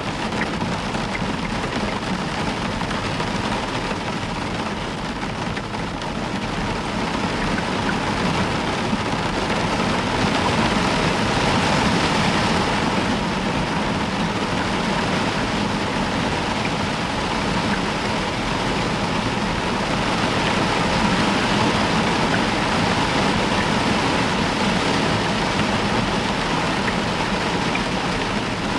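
Heavy rain falling steadily, an even hiss with no claps of thunder, swelling a little louder a third of the way in and again later.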